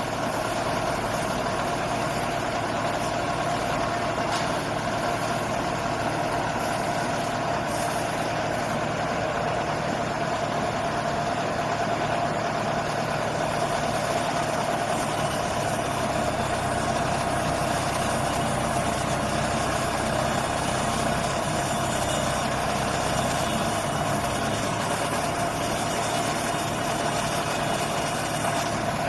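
Engine of a rubber-tracked water well drilling rig running steadily, with a steady mid-pitched whine over it.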